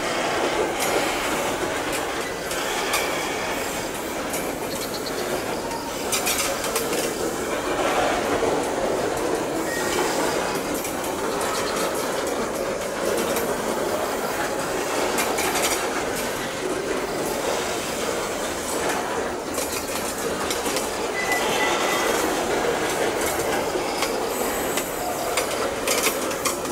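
Loaded coal wagons of a long Babaranjang coal train rolling slowly past, a steady rumble of wheels on rail with scattered clicks and clanks. A brief faint wheel squeal comes about three quarters of the way through.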